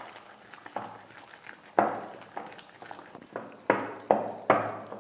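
Wire whisk beating ghee and powdered sugar in a glass bowl, its wires clinking against the glass in repeated sharp, briefly ringing knocks. The knocks come faster toward the end.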